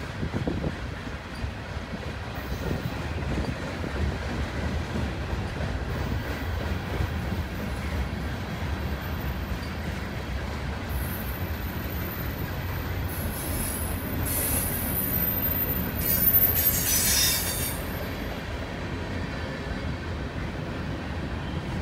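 Freight cars of a long mixed manifest train rolling past with a steady low rumble. From about halfway through, high-pitched squealing from the cars' wheels comes and goes, loudest near three-quarters of the way in.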